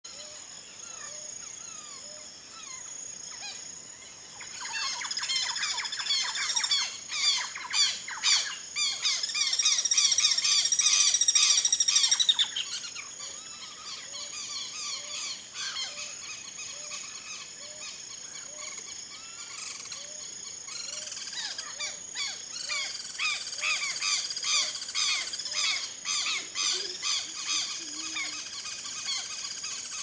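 Turquoise-fronted parrots chattering in two long bursts of fast, overlapping chirps and squawks, the first from about four seconds in, the second from about twenty seconds in. A steady high insect drone runs underneath.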